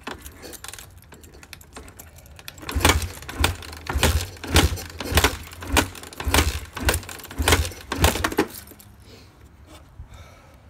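Kawasaki KX450F's single-cylinder four-stroke engine being kicked over on a cold start: about ten quick kickstart strokes a little over half a second apart, each a sharp clack with a low thump, from about three seconds in to eight. The engine does not catch and run.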